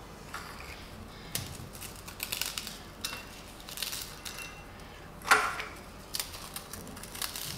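Marie biscuits being snapped and crumbled by hand, the pieces dropping into small glass jars and bowls: a scatter of light crackles and clicks, with one louder sharp click about five seconds in.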